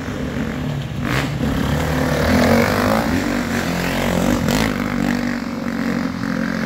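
Two enduro dirt bikes revving as they ride past, their engines swelling from about a second in and loudest as the nearer bike goes by close.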